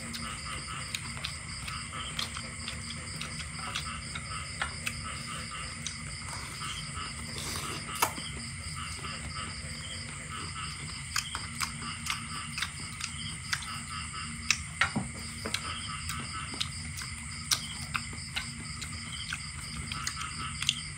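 Night chorus of insects trilling in steady high tones, with frogs calling in repeated pulses and a few sharp clicks scattered through.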